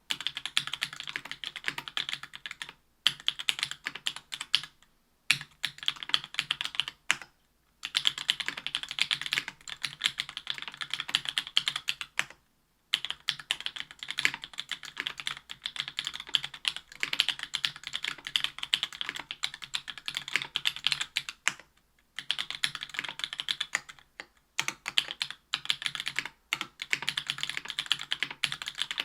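Fast typing on a Special Whale LinWorks mechanical keyboard with stock JWK Black Clear Top 62 g linear switches, an aluminium plate, GMK Triumph Adler keycaps and memory-foam dampening: a dense stream of key clacks, broken by brief pauses every few seconds.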